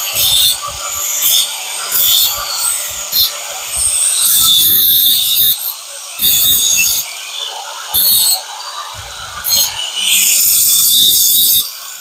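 Repeated rasping strokes of a hand tool worked back and forth on a workpiece, like filing or sanding, in uneven bursts of about half a second to two seconds.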